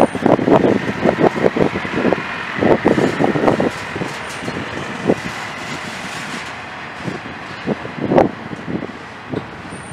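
Double-stack intermodal well cars of a Norfolk Southern freight train rolling past, wheels clacking over rail joints. The clacks come in quick clusters in the first four seconds, then turn sparse over a steady rumble, with one loud clack about eight seconds in.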